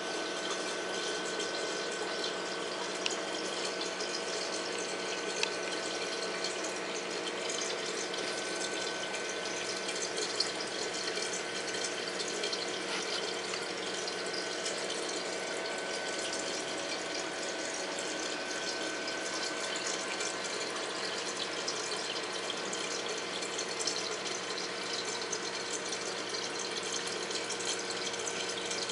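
Saltwater reef aquarium's water circulation: a steady rush of moving water with a steady pump hum underneath.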